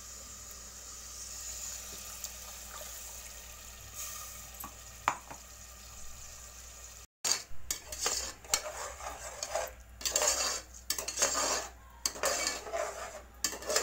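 Onion-tomato paste frying in oil with a steady sizzling hiss and a couple of light clinks. About seven seconds in, quick, irregular, louder scraping and clattering begins as a slotted metal spoon stirs the paste around an aluminium pressure cooker.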